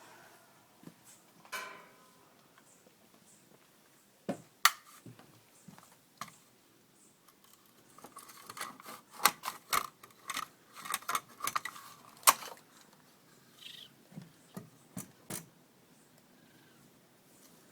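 Baby raccoons calling: a short pitched whine about a second and a half in, then a run of chittering mixed with sharp clicks from about 8 to 12 seconds in. A few more scattered clicks come before and after.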